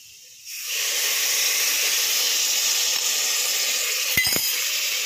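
Liquid poured into a hot pressure cooker of fried onion-and-spice masala, setting off a sudden loud sizzle about half a second in that carries on steadily. A single metal clink about four seconds in.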